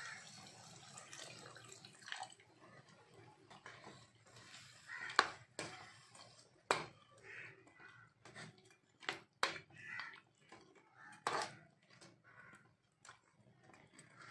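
Water pouring into a metal pan of chicken masala tails off in the first couple of seconds, then a metal ladle stirs the gravy, scraping and knocking against the side of the pan a dozen or so times.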